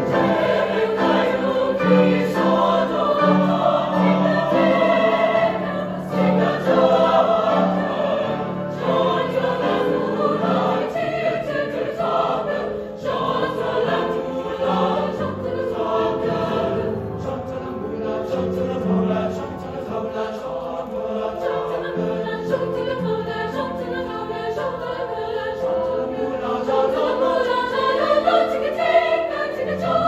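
Mixed-voice choir of young men and women singing a choral piece together, in sustained chords.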